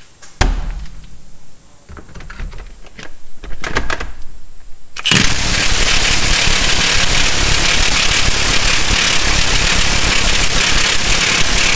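Milwaukee M18 high-torque impact wrench hammering continuously for about seven seconds on a Honda 3.5 L V6 crankshaft pulley bolt through a standard 19 mm socket, starting about five seconds in after a knock and a few clicks. The bolt does not break loose: the light standard socket does not carry enough of the impact's blows to free the tight crank bolt.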